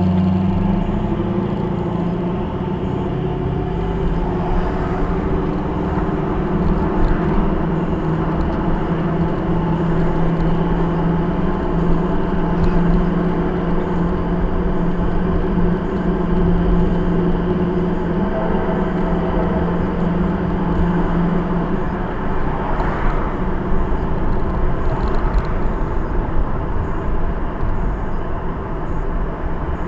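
A car driving on a town street, heard from inside the cabin: steady engine and road noise. A low steady drone runs under it and stops about two-thirds of the way through.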